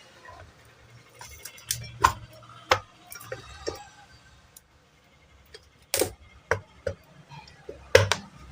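Metal ceiling-fan parts and tools clinking and knocking as they are handled on the bench. A series of sharp, separate metallic knocks comes irregularly, the loudest about two, six and eight seconds in.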